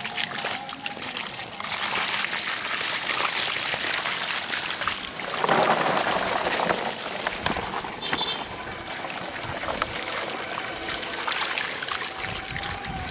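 Shallow water splashing and trickling with many small crackling ticks as a mass of small fish flap in a tarp-lined catch pen and are scooped out with a bamboo basket. A louder rush of water and fish about halfway through.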